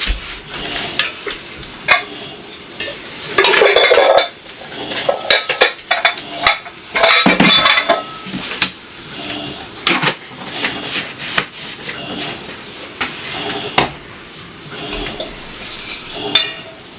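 Dishes and metal cutlery being handled in a kitchen: a string of clinks and knocks, busiest a few seconds in.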